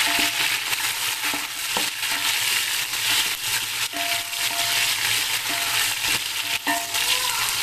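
Browned sliced onions, tomatoes and garlic sizzling in hot oil in an aluminium pot while being stirred with a spoon, which scrapes against the pot now and then.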